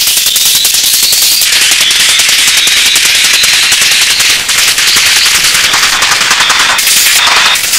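Hard techno breakdown with the kick and bass cut out, leaving a dense, rapid crackling rattle high in the treble, like a fast machine-gun roll.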